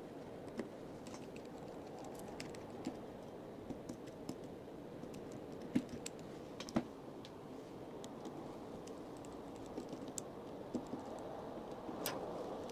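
Light scattered clicks and ticks of a precision screwdriver turning out the tiny screws of a smartphone's main board, its tip catching in the screw heads, with two sharper taps a little past the middle and another near the end.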